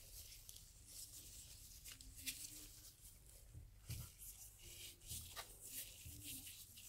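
Faint gritty scraping and crunching of damp bath bomb powder being scooped and packed into a round metal mould, a few short scratchy bursts.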